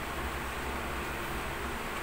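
Steady hiss and low hum, with faint rustling as a cardboard box is turned and handled.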